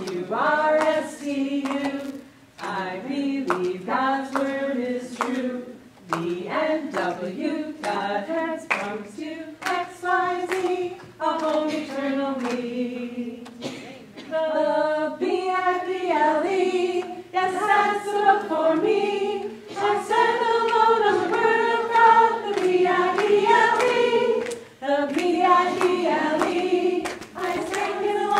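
Several women's voices singing a lively children's Sunday school song together, with hand claps in time.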